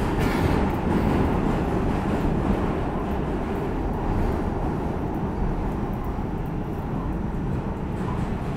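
New York City subway trains running side by side through a tunnel: a steady low rumble of wheels on rails, heard from inside one of the cars.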